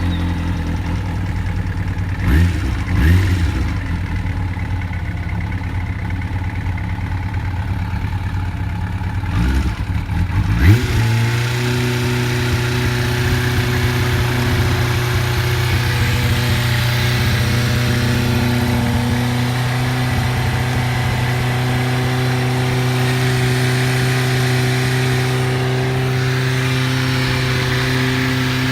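Kawasaki ZRX400's inline-four engine idling through an aftermarket silencer just after starting, with a few short blips of the throttle in the first ten seconds. At about eleven seconds its speed steps up to a higher, steady fast idle and holds there.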